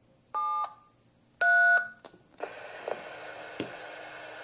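Two DTMF touch-tones, a 7 then a 3, each about a third of a second long and the second louder, keyed on a ham radio's microphone keypad to send the IRLP disconnect code. From about two and a half seconds in, a steady radio hiss follows as the repeater's signal comes back through the radio's speaker.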